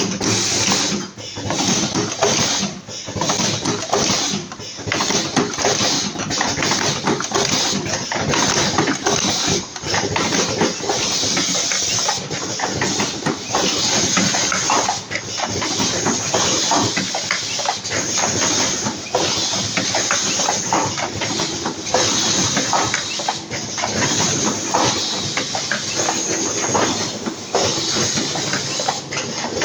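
Automatic pneumatic cartoning machine running: a dense, continuous mechanical clatter with many rapid clicks and knocks throughout.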